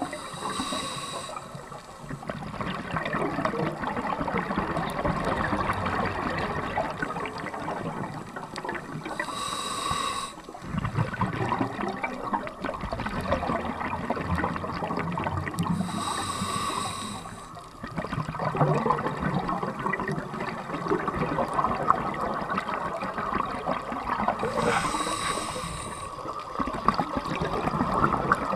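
Scuba diver breathing underwater through a regulator: four inhalations, each a short hiss with a faint whistle, about every eight seconds. Between them comes the long bubbling rush of exhaled air.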